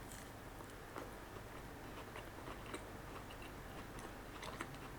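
Faint, soft chewing of a moist old-fashioned cake donut close to the microphone, with small scattered wet mouth clicks.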